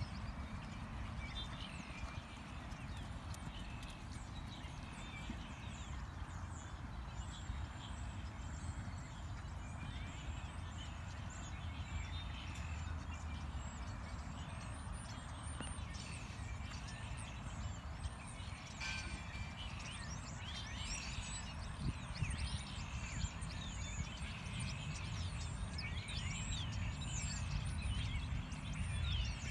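Horse moving over an arena's sand footing: dull hoofbeats over a steady low rumble, with many high chirps coming and going, busier in the second half.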